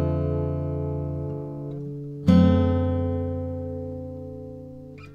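Background music on guitar: a strummed chord left to ring and fade, then a new chord struck about two seconds in that also rings out.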